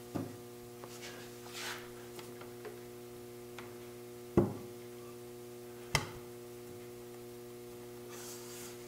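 A wooden stretcher being worked into glued mortise-and-tenon joints in workbench legs: three sharp wood-on-wood knocks, near the start, about halfway and a second and a half later, with a few light taps between. Under them runs a steady electrical mains hum.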